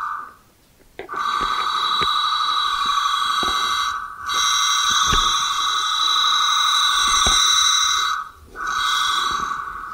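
Dial-up modem board sounding a steady tone of about 1 kHz through its built-in speaker, with higher tones layered over it. It breaks off briefly three times: at the start, about four seconds in and about eight seconds in. The tone was set off by the modem's voice/data button.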